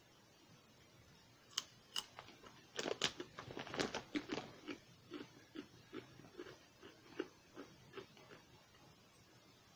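Ridged potato chips crunching as a person bites and chews with immediate dentures worn without adhesive. Two sharp snaps of the bite come first, then a burst of dense crunching, which eases into steady chewing, two or three strokes a second, that fades out near the end.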